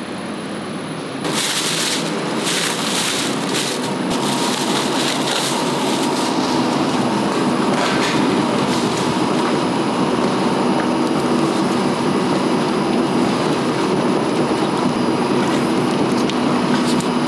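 Two-roll rubber mill running, its steel rollers kneading uncured silicone rubber and working a red colour compound into it, with a steady mechanical drone. About a second in, the noise gets louder, with a spell of sharper hissing; a steady hum grows stronger later on.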